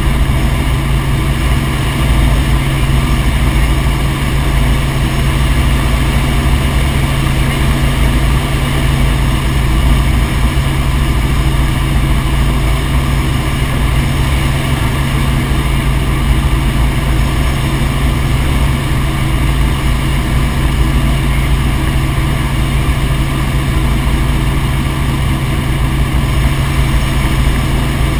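Helicopter in flight: steady, loud engine and rotor noise that holds level without change.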